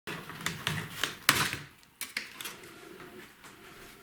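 Plastic snap-fit clips of a laptop's bottom cover clicking and cracking as the cover is pried loose, one sharp snap about a second in, then quieter scraping and handling of the plastic.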